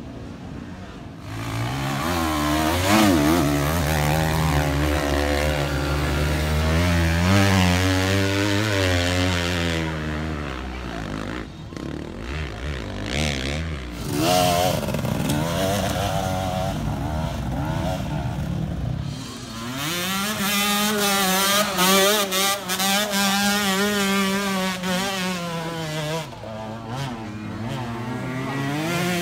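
Enduro dirt bike engines revving hard and unevenly on steep hill climbs, the pitch wobbling up and down as the throttle is worked. The engine sound changes abruptly about ten and again about nineteen seconds in.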